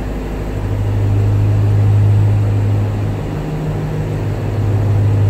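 Ram 1500 TRX's supercharged 6.2-litre Hemi V8 idling, a steady deep hum.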